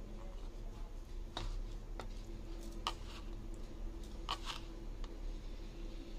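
A handful of light clicks and taps from a small plastic spoon scooping red sugar and tipping it onto steamed pumpkin pieces, over a steady low hum.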